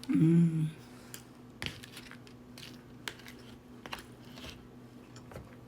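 Scattered light clicks and taps of a plate and food being handled while eating fried chicken and rice by hand, after a short hum from the eater at the start.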